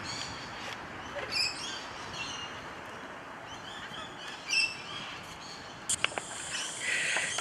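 Birds calling in short chirps every second or two over a steady background hiss, with a single sharp click about six seconds in.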